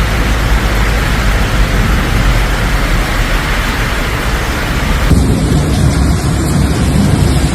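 Heavy rainstorm: a steady loud hiss of pouring rain over a deep rumble. About five seconds in the sound changes abruptly, with more low rumble and less high hiss.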